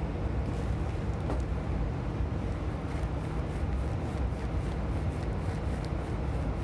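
Steady blower and airflow noise of a biological safety cabinet: a constant low hum under an even rush of air, with a faint click about a second and a half in.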